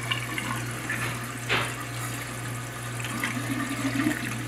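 Toilet tank refilling: water running steadily from the fill valve into the tank, with a brief knock about a second and a half in.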